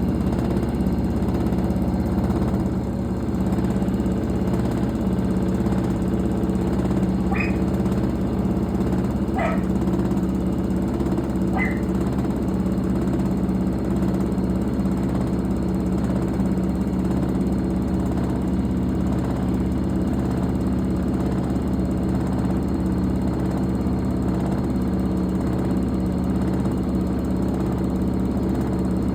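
Fisher & Paykel Pride MW511 washing machine running with a steady mechanical hum. A few short high chirps sound over it about 7, 9 and 11 seconds in.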